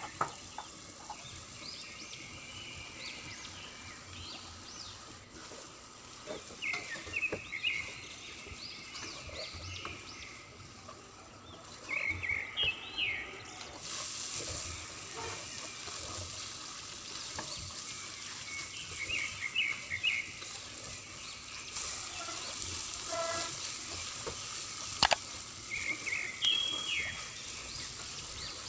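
Frying food sizzling low in a pan, with small birds chirping in short repeated bursts in the background. About 14 s in, a brighter hiss sets in. A single sharp click comes near 25 s.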